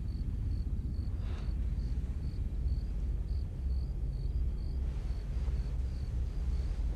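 Low, steady background rumble with faint high chirps repeating three or four times a second, like crickets, and a soft brief rush of noise about a second in.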